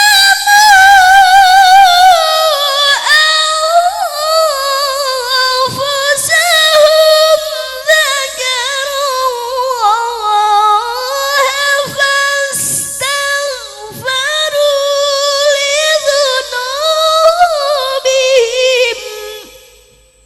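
A qari's melodic Quran recitation: a single high voice drawn out in long, heavily ornamented phrases whose pitch wavers and glides, sinking lower over the first few seconds. The voice fades out near the end.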